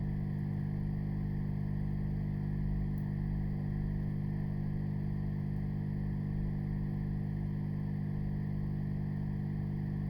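Hot air rework station blowing steadily, giving a constant low hum with no change in pitch.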